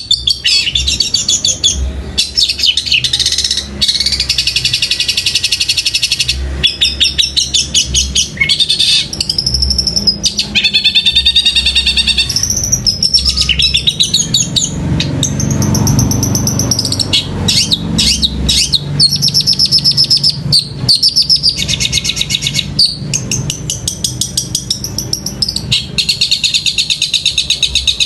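Caged long-tailed shrike (cendet) singing without letup in long runs of rapid, high chattering notes broken by brief pauses, mimicking the quarrelling calls of Eurasian tree sparrows.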